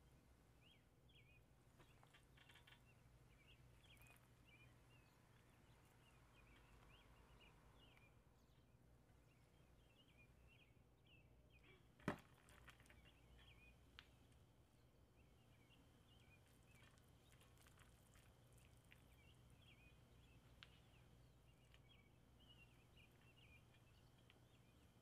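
Near silence with faint, rapid high chirping throughout, like small birds in the background, over a low steady hum. One sharp click about halfway through.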